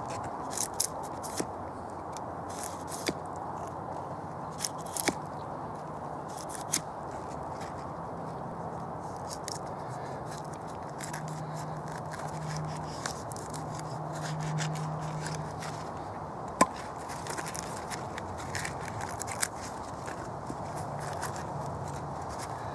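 Gerber knife blade cutting and shaving bark off a split birch log: irregular sharp scrapes and cracks as the blade bites into and peels the bark, over a steady background hiss.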